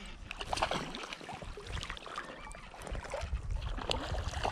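Water splashing irregularly as a hooked brown trout fights at the surface while being reeled in, over a low rumble that grows louder in the second half.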